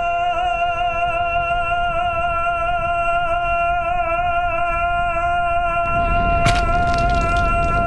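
A man singing one long, loud operatic note, held with a slight waver in pitch. About six seconds in, the voice turns harsher and noisier, with a few sharp clicks.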